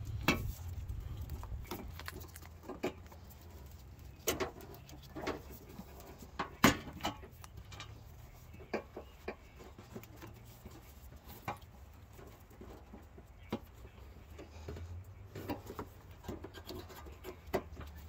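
Plastic push-pin retainers being pried and popped out of a car's bumper cover with a plastic trim tool: scattered sharp clicks and knocks every second or two, the loudest about a third of the way in, over a faint low rumble.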